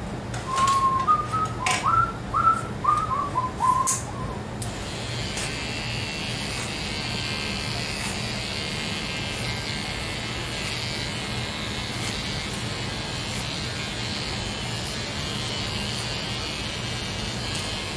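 A person whistles a short tune of about eight notes, then electric hair clippers switch on about four and a half seconds in and run steadily as they cut hair.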